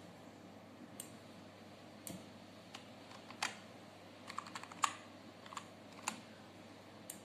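Computer keyboard being typed on: irregular, separate key clicks, with a quick run of keystrokes a little past halfway.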